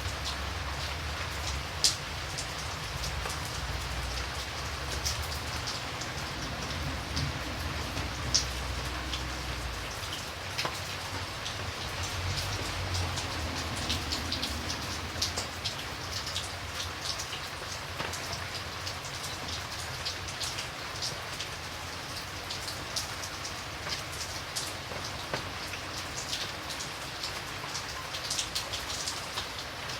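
Steady rain, with many separate drops striking a surface as sharp ticks over a continuous hiss. A low rumble underneath stops about ten seconds in.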